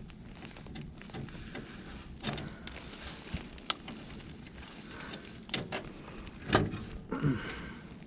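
Scattered metallic clanks, scrapes and knocks as a heavy truck starter motor and tools are worked into place in a cramped spot under the truck, with one louder knock near the end.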